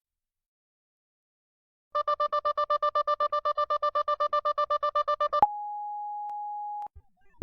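Electronic missile-warning tone: rapid beeping, about eight beeps a second, for three and a half seconds, then changing to one steady tone that holds for about a second and a half and cuts off.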